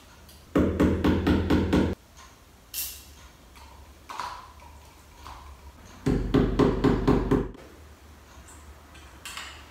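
Hammer tapping a nail into a wall in two quick runs of about seven even knocks each, a few seconds apart, with a few faint single clicks between them.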